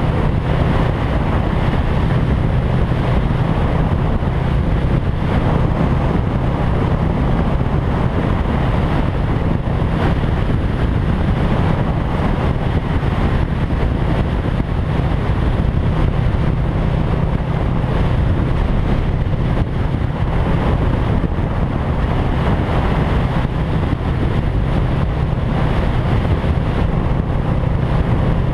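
Motorcycle engine running at a steady cruising speed, its pitch unchanging, with wind rushing over the camera microphone.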